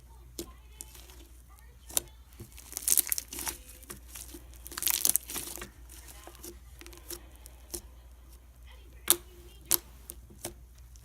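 Fluffy shaving-cream slime being poked and squished by hand: sharp little pops and crackles, with two longer crackling stretches about three and five seconds in.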